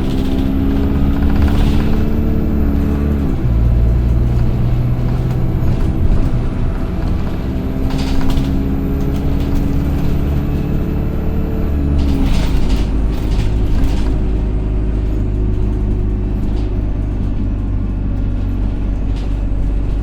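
Single-deck bus DE1167 accelerating while the engine pulls through its gears. The engine note climbs, then drops at a gear change about 3 seconds in and again about 12 seconds in, with a thin high whine rising and falling with it: the bus's loud 'hoover' whine. Occasional short rattles from the body.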